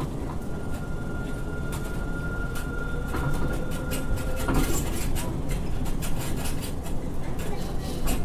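Airport Skytrain people mover running along its elevated guideway, heard from inside the front car: a steady running rumble with frequent ticks and knocks. A steady high whine runs through the first half and drops out after a louder clunk about four and a half seconds in.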